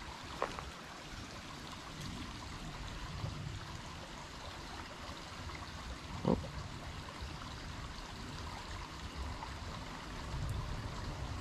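Small stream running and trickling steadily into a rocky pool. A brief knock comes about six seconds in, with a fainter click near the start.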